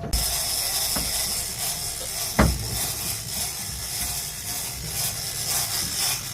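Big-game fishing reel's drag screaming as line is stripped off it, a fast ratchet-like clicking with a high whine, starting abruptly: the sign of a fish taking line on a fresh strike. A single loud knock comes about two and a half seconds in.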